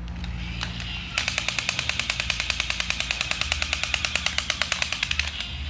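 Battery-powered crawling soldier toy running: a fast, even rattle of machine-gun clicks, about ten a second, starts about a second in and stops shortly before the end, over the steady low hum of its motor.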